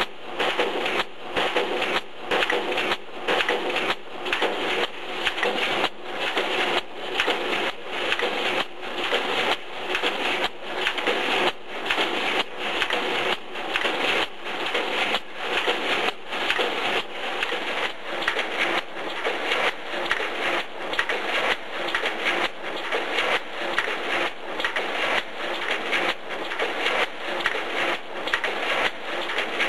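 Automatic wire mesh resistance-welding machine running, its pneumatically driven copper electrodes coming down on the crossing wires in an even rhythm about one and a half times a second. Each stroke is a sharp clack as the welds are made.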